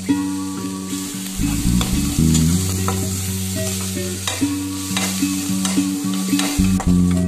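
A steel spatula stirs and scrapes ginger and onion frying in oil in a metal kadai, with a scattering of short scraping clicks over a steady sizzle. Instrumental background music with a low bass line plays throughout.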